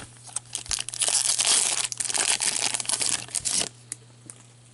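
Foil wrapper of a hockey trading-card pack being torn open and crinkled by hand. A few scattered crackles come first, then about three seconds of continuous crinkling that stops abruptly.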